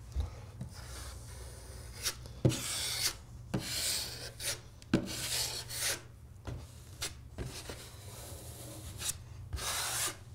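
Steel broad knife scraping across a plasterboard wall as it spreads and feathers out a second coat of Tradeset joint compound: a series of separate scraping strokes, a few starting with a sharp tap.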